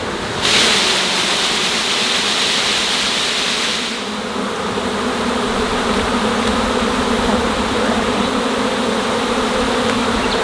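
Dense buzzing of a swarm of agitated honeybees flying around the hive box they are being shaken into, a steady drone that holds throughout. A loud rustling hiss lies over it for the first few seconds.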